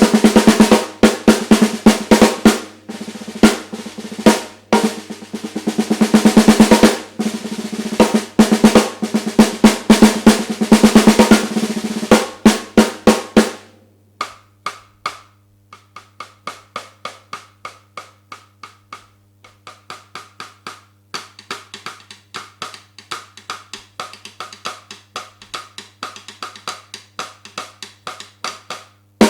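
A 14" x 5" maple snare drum played with sticks: loud strokes and rolls for about the first half, then much softer, lighter strokes through the second half.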